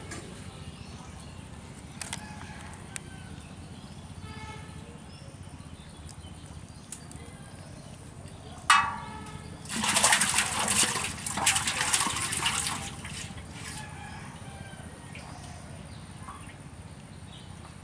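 Water splashing and sloshing in a metal pot for about three seconds, from a freshly caught small fish thrashing in it. Just before, a brief sharp high call.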